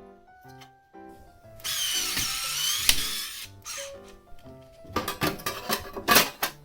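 Electric screwdriver motor running in one burst of about a second and a half, with a wavering whine. A run of sharp clicks and knocks follows near the end. Background music plays throughout.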